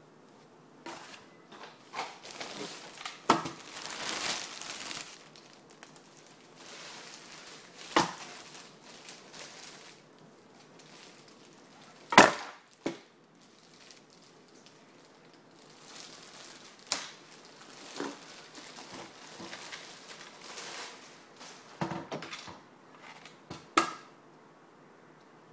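Packaging being handled: rustling and crumpling with scattered sharp knocks, the loudest about halfway through.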